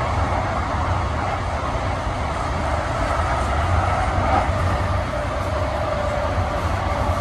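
Siemens SD660 light rail car running along the track, heard from inside the car: a steady low rumble of wheels on rail with a hum of the running gear.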